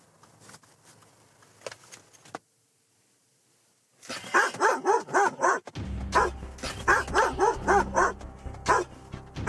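Standard poodle barking rapidly and repeatedly inside a car, about two to three barks a second, starting about four seconds in. The dog is excited at something it sees out of the car window.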